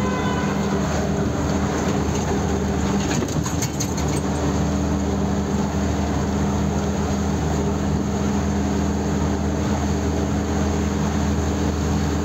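Truck engine running steadily with road noise inside the cab while driving at a constant speed. A few faint clicks come about three seconds in.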